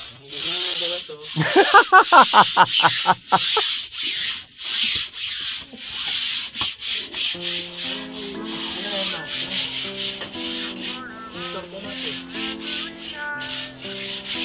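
Stiff hand brush scrubbing the wet, soapy cover of a foam mattress, a hissing rub of repeated strokes. A quick burst of about eight loud pitched squeaks comes near the start.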